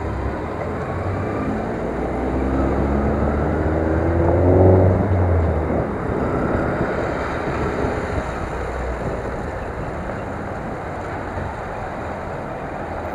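City road traffic with a steady rumble. A vehicle engine runs up in pitch, loudest about four to five seconds in, then settles into steady traffic noise.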